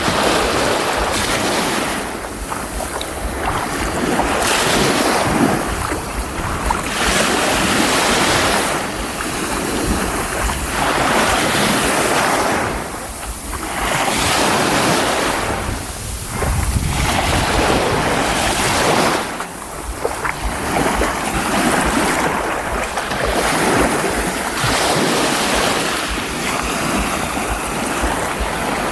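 Baltic Sea surf washing onto the shore, a continuous rush that swells and eases every few seconds, with wind rumbling on the microphone.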